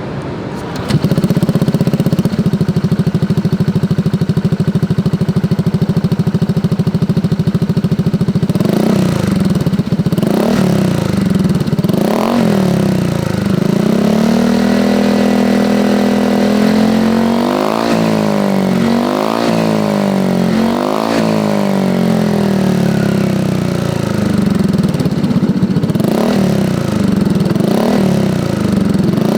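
Automatic scooter's small single-cylinder engine through an aftermarket 3Tech EvoX STD carbon-steel exhaust with its Easy DB Killer baffle fitted, idling and being blipped: a few single revs, one longer held rise, then a quick run of rapid blips before it settles back to idle with two last revs.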